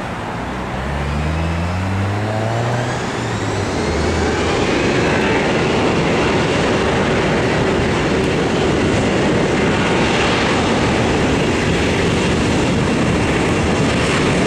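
An Airbus A340-300's four CFM56 jet engines spool up to takeoff thrust. Their rising whine and hum climbs in pitch over the first few seconds and settles into a steady, loud jet roar as the takeoff roll begins.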